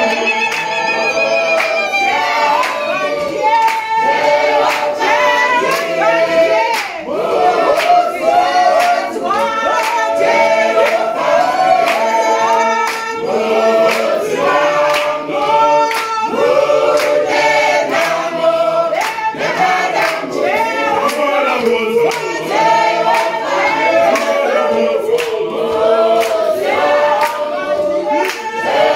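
Mixed church choir singing a Shona hymn a cappella, in several voice parts, with rhythmic hand clapping throughout.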